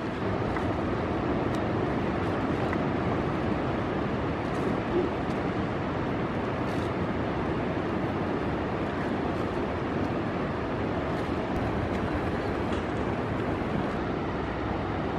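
Steady rush of ocean surf and wind on the microphone, even and unbroken.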